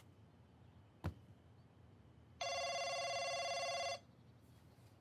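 Mobile phone ringing with an incoming call: one ring of about a second and a half, starting about halfway through, with the next ring beginning right at the end. A short thump comes about a second in.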